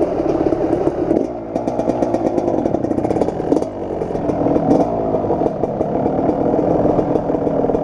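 Kawasaki KX250 two-stroke dirt bike engine pulling away and accelerating, heard from the rider's helmet. The engine revs up in several climbs with a drop at each gear change.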